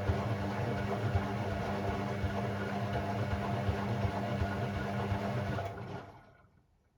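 Hoover Sportswear 1300 (AI130) washing machine running with a steady mechanical hum, which winds down and stops just under six seconds in.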